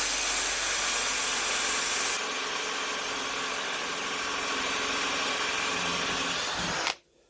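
Power drill running steadily while drilling a hole deeper into the phone holder. Its high hiss drops a little about two seconds in, and it stops suddenly near the end.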